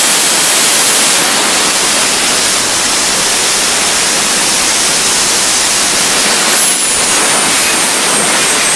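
RC model jet turbine engine running at high power with a loud rushing exhaust noise and a thin high whine. The whine climbs as the turbine speeds up about two seconds in, holds, then drops from about six seconds in as it is throttled back.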